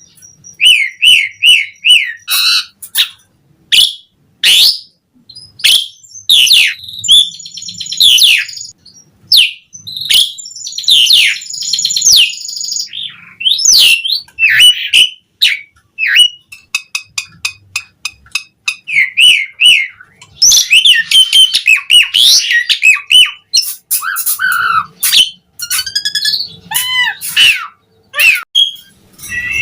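Asian pied starling (jalak suren) singing vigorously: a fast, varied run of whistled glides, chirps, clicks and harsh squawky notes, broken by short pauses.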